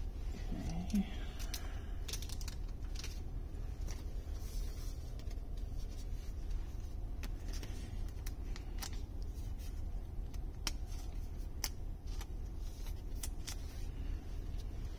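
Thin plastic card sleeve crinkling and ticking as a foil trading card is handled and slid into it, in scattered light clicks, over a steady low hum.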